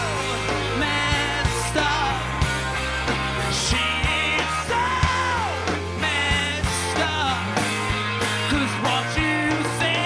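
Live pop-rock band playing an instrumental passage: steady drum hits and bass under a lead melody line that slides and bends in pitch.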